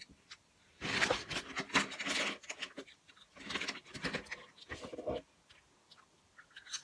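Plastic snack packaging crinkling and rustling as it is handled, in three bouts.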